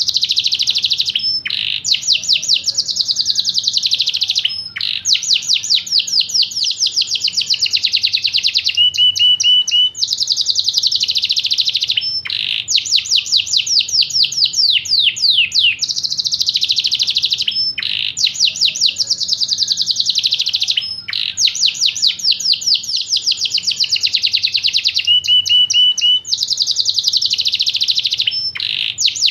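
Yorkshire canary singing a long, continuous song of rapid trills, each note a quick downward sweep, in phrases of a few seconds with brief breaks between them.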